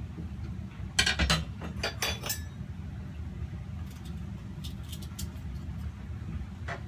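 Kitchen utensils clinking and knocking: a quick run of sharp clinks about a second in, then a few fainter taps, over a steady low hum.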